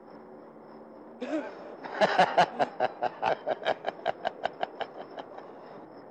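A man laughing: a short voiced cry about a second in, then a run of rhythmic 'ha' bursts, about five a second, loud at first and fading away.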